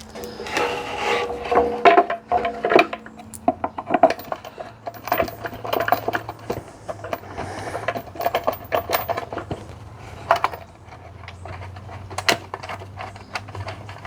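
Hand work on metal parts: clinks, knocks and scrapes, with short runs of quick clicks, as an adapter cover is fitted to an electric motor and a screw is set for alignment.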